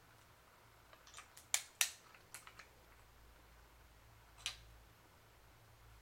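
Light metal clicks and taps from the Ruger Single Six revolver's cylinder being fitted back into its frame: a quick cluster of clicks a second or two in, then a single click later.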